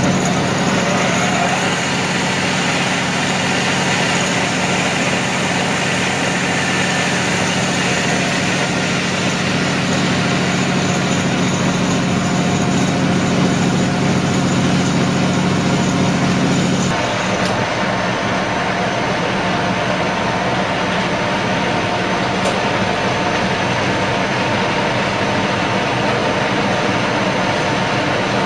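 Radial arm drilling machine running with steady mechanical noise; about two-thirds of the way through, a low hum cuts off suddenly and the rest of the running noise continues.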